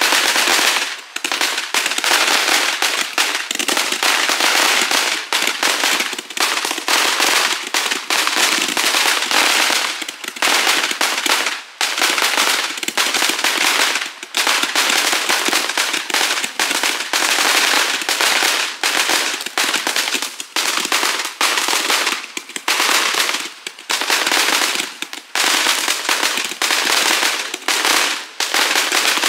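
Fox Fireworks Beast Candle, a 666-shot Roman candle, firing shot after shot in rapid succession: a dense, continuous popping and crackling broken by a few short lulls.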